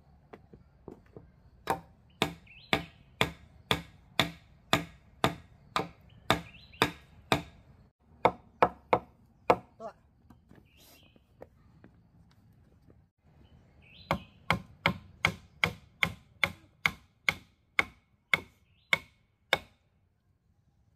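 Machete chopping into wooden and bamboo house poles: a run of sharp, even blows about two a second, a pause of a few seconds, then a second run of blows.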